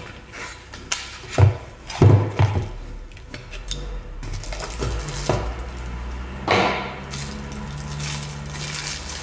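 A small cardboard box handled and opened on a wooden tabletop, with several knocks against the table, then rustling as a stainless steel grinder in a plastic bag is pulled out.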